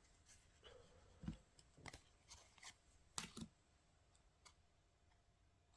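Near silence with a few faint taps and clicks of trading cards and packs being handled, a pair of them close together about three seconds in.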